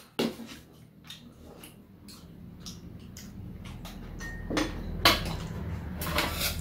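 Stainless-steel chopsticks and spoons clinking and tapping against dishes and a metal serving tray while eating: scattered light clicks, with a few sharper clinks late on.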